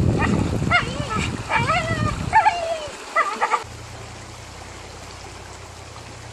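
Pit bull whining and yelping in short high-pitched cries over low rumbling noise, eager to get at the fish. The cries stop abruptly about three and a half seconds in, leaving only a steady low hum.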